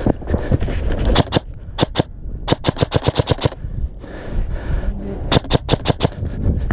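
Airsoft guns firing: a few single shots, then two rapid bursts of about ten shots a second, each lasting about a second, as sharp snapping clicks.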